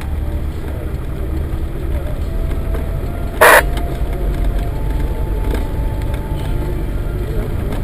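Land Rover Defender 110 driving slowly along a rutted dirt track, heard from inside the cabin as a steady low engine and road rumble. A single sharp, loud bang sounds about three and a half seconds in.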